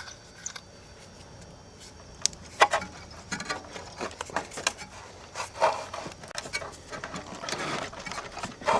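Scattered clicks, knocks and scraping as a stubborn compressor terminal cover on an air conditioner is worked and pried at to get it off.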